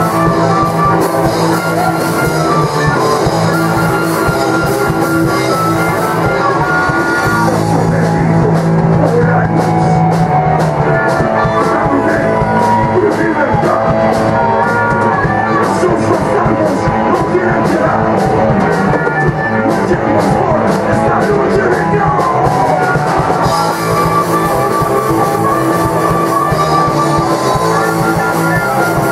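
A rock band playing live: electric guitars and bass over a drum kit, with fast, dense cymbal and drum hits throughout.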